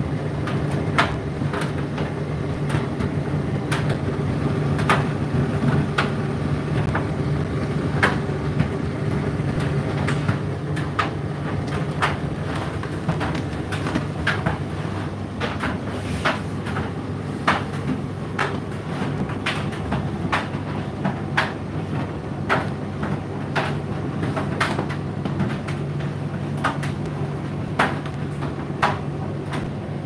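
Indesit IDC8T3 condenser tumble dryer running mid-cycle: a steady motor and fan hum, with irregular clicks and knocks as the load tumbles in the turning drum.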